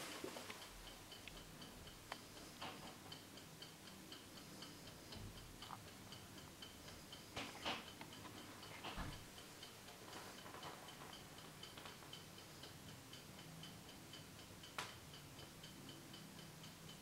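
Faint, rapid, even ticking of a Viner of London double fusee table clock's fully jewelled underslung lever platform escapement, the clock running. A few louder knocks come now and then.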